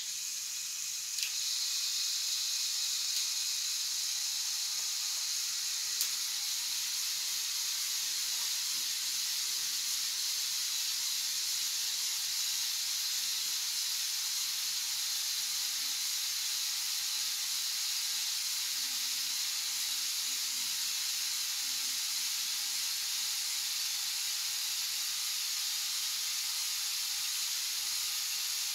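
LEGO Technic 42055 bucket wheel excavators running on their Power Functions XL motors, with a steady hissing whir of plastic gear trains, bucket wheels and conveyors. It starts with a click about a second in and holds at an even level, with another small click a few seconds later.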